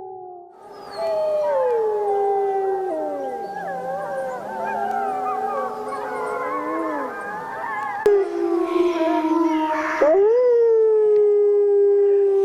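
Wolves howling in chorus, several overlapping howls gliding up and down in pitch. About eight seconds in, one wolf's long, steady howl takes over, breaking and rising again about two seconds later.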